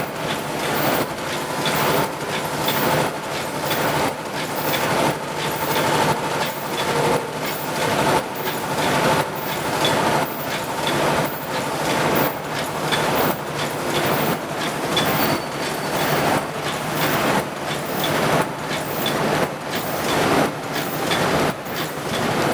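Paper cup forming machine running, a steady mechanical clatter that swells and repeats about once a second over a constant low hum.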